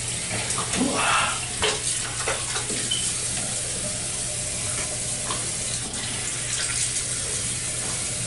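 Bathroom sink tap running steadily into the basin, with splashing as hands scoop water to wash the face.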